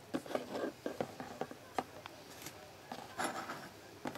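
Hands handling small metal motorcycle ignition parts and their taped wiring on a tabletop: a string of light clicks, taps and rubbing, with a denser burst of rustling a little past three seconds in.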